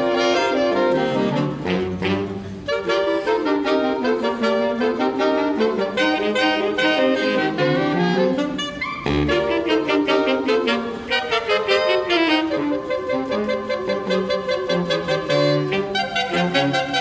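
Student jazz big band playing live, the saxophone section to the fore with trumpets and trombones behind, melodic phrases rising and falling in pitch, with a short break between phrases about nine seconds in.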